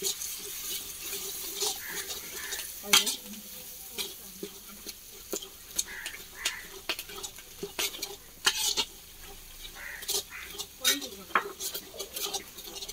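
A steel spatula stirring and scraping spice masala and boiled chickpeas in hot oil in a large iron kadhai. Irregular metal scrapes and clinks against the pan come over a steady sizzle.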